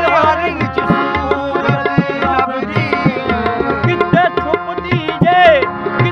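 Devotional song sung over tabla accompaniment: a held, gliding vocal line above a steady run of tabla strokes.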